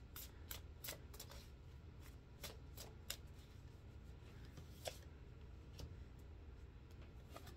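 Tarot cards being shuffled and handled by hand: soft, irregular card snaps and riffles, thickest in the first few seconds, with one sharper snap about five seconds in.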